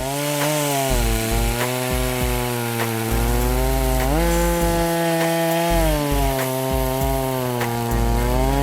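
The 82 cc two-stroke engine of an EFCO MT8200 chainsaw running at high revs while cutting through wood. Its pitch sags and recovers several times as the chain loads up in the cut.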